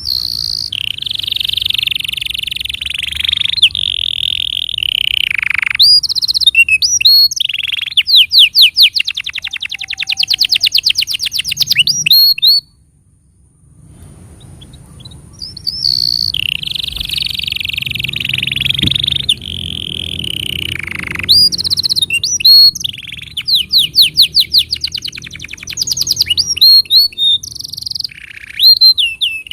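Canary singing a long song of rolling trills and fast runs of repeated notes. The song breaks off about twelve seconds in and starts again after a short pause with much the same phrases.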